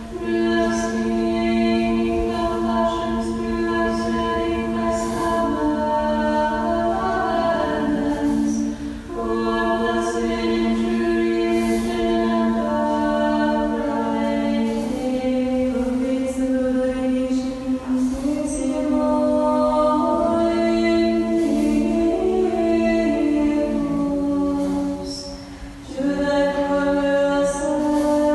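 Unaccompanied choir chanting an Orthodox prayer in long held phrases, with a few short pauses between phrases.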